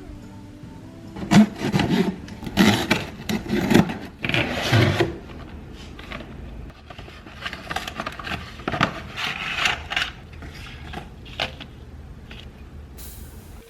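Hands handling things: irregular rubbing and scraping, loudest in a run of scrapes over the first few seconds, then softer scrapes and a few light taps.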